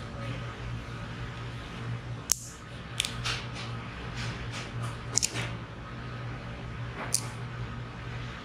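Ginkgo nut shells cracking in metal ginkgo-cracker pliers: several sharp snaps a second or two apart, the first the loudest. A steady low hum runs underneath.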